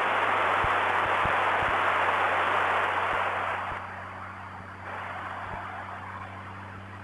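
CB radio static hissing loudly from the Gold Wing's speakers, a harsh band-limited rush like an open squelch. After about three and a half seconds it drops to a much lower level, as the volume is turned down.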